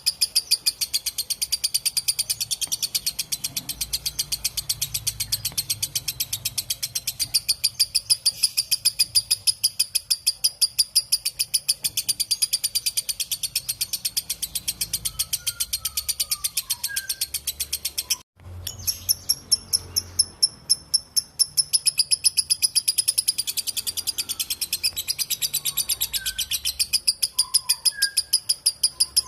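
Lovebird giving its long 'ngekek' chatter: a fast, even run of sharp, high, shrill notes, several a second, that breaks off for a moment about two-thirds of the way through and then resumes. Faint, scattered chirps from other birds sound underneath.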